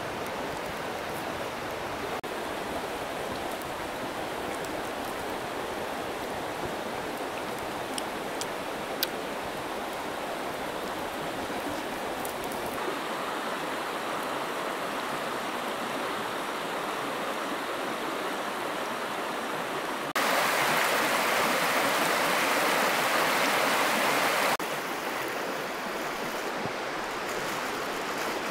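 Steady rush of running water, changing level abruptly a few times and loudest for about four seconds near the end, with a few faint clicks early on.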